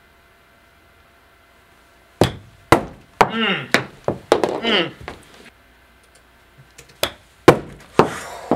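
Golf chip shots: a series of sharp knocks from clubs striking balls and balls landing, starting about two seconds in.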